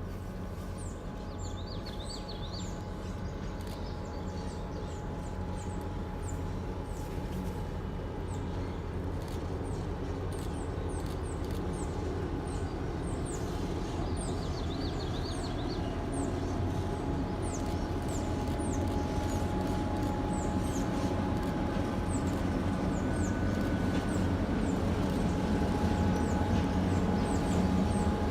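A train approaching, its low rumble growing steadily louder, with a faint steady tone over it. Birds chirp repeatedly in short falling notes throughout.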